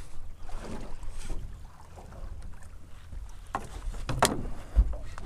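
Low wind rumble on the microphone and water against a small boat's hull, with a few light clicks and a low thump near the end.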